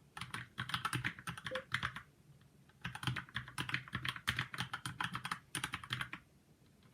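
Fast typing on a Keychron mechanical keyboard, a rapid run of key clicks that pauses for about a second after two seconds, resumes, and stops about a second before the end.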